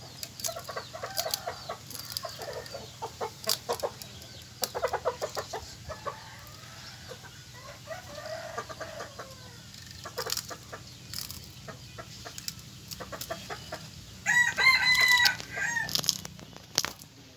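Chickens clucking in short repeated calls, with scattered sharp clicks, and a rooster crowing loudly for about a second and a half near the end.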